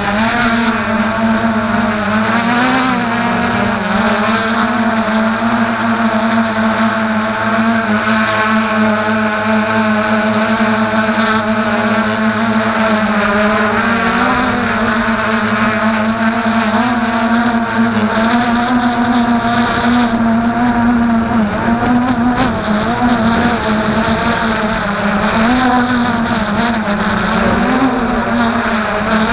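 FreeX Skyview quadcopter's motors and propellers running in flight, heard through the camera on the craft itself. The steady whine wavers up and down in pitch as the throttle changes while it climbs.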